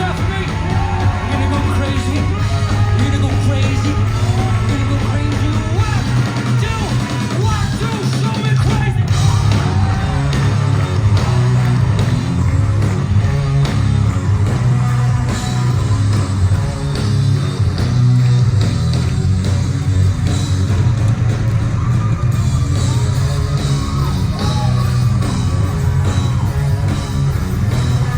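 Live rock band playing loud, with guitar, heavy bass and drums under a singer's yelled vocal lines.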